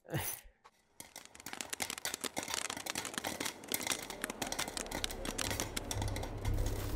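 Popcorn popping in a popcorn machine's steel kettle: a dense, irregular crackle of pops starting about a second in. A low rumble swells in near the end.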